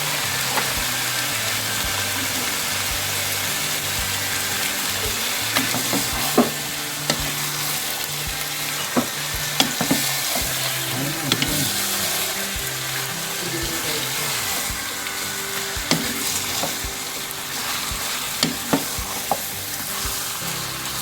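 Chicken pieces sizzling in hot oil with ginger, garlic and onion as they are stirred, with a utensil knocking and scraping against the pan now and then.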